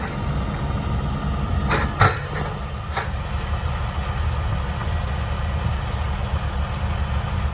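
Heavy diesel engine running steadily under load, with a few sharp knocks about two and three seconds in.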